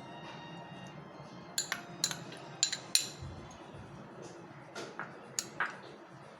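A spoon clinking and scraping against a cooking pot while vegetables are stirred into dal, with about seven sharp clinks in the last five seconds.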